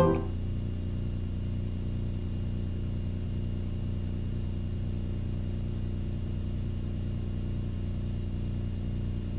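Steady low electrical hum with a faint high whine above it, with no programme sound: the background hum of the videotape transfer during a blank, black stretch between TV segments.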